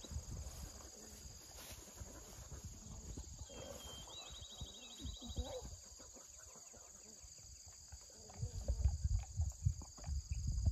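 Insects droning steadily at a high pitch, with a short rapid bird trill about four seconds in. Near the end comes a run of low knocks and rustles close to the microphone as a dog is given a chewable tablet.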